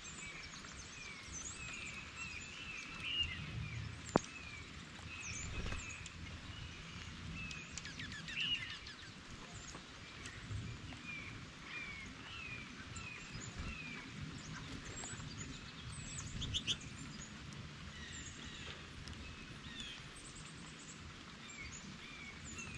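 Small songbirds chirping and calling in short notes over a steady hiss of light rain, with a sharp click about four seconds in and a few soft knocks.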